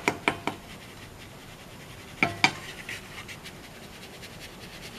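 Ground garam masala being sifted through a fine plastic sieve shaken over a plate: a scratchy rustle with sharp knocks of the sieve, several in quick succession at the start and two more about two seconds in.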